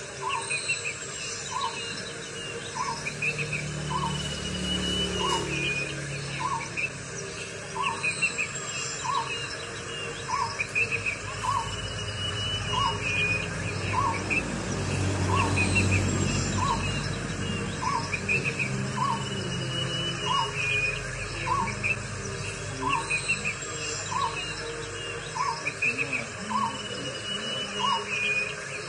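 Birds calling: one bird repeats a short low note about once a second while others give quick chirping bursts and an occasional high falling whistle, over a steady background of insects. A low rumble swells and fades twice, loudest around the middle.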